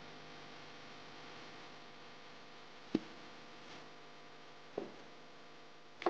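Faint steady background hum with two short clicks, a sharper one about three seconds in and a softer one near five seconds.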